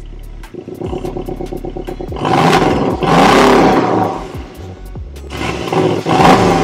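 Porsche 718 Cayman's 2.0-litre turbocharged flat-four revved twice while standing in Park with Sport mode on. A long rev comes about two seconds in, it drops back toward idle, and a shorter rev follows near the end.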